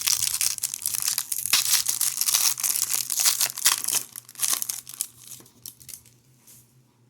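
A 2021-22 Upper Deck Ice hockey card pack wrapper being torn open and crinkled, a dense crackling that dies away after about five seconds.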